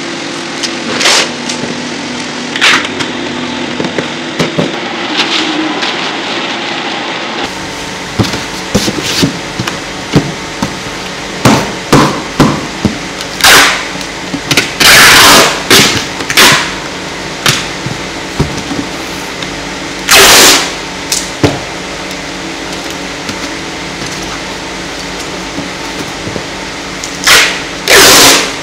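Kraft paper being handled, folded and crinkled around a wooden stool: repeated loud rustles, a few lasting about a second, over a steady background hum.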